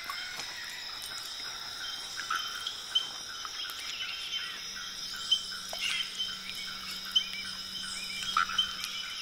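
Rainforest insects trilling steadily at several high pitches, with scattered short chirps and clicks over them.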